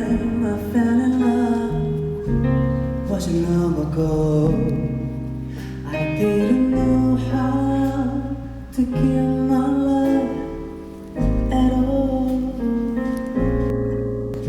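Live band playing the slow instrumental intro of a pop ballad, with sustained chords changing every second or two.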